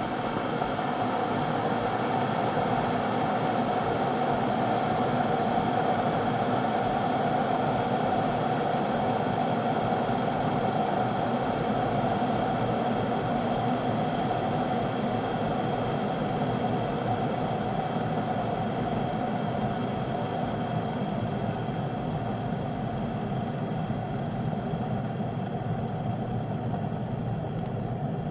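Electric kettle boiling water: a steady rushing, bubbling rumble that eases slightly over the last several seconds.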